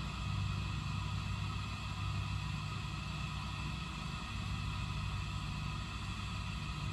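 An engine running at a steady speed, a low even drone.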